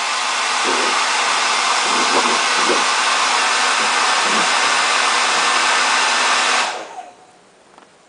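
Handheld hair dryer blowing with a steady rushing noise and a faint motor hum. Near the end it is switched off, and the noise dies away within about half a second.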